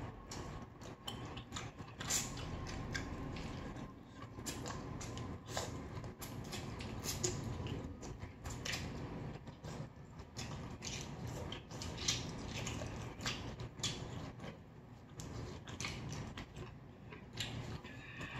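Close-miked eating: chewing, with frequent short clicks of cutlery against dishes.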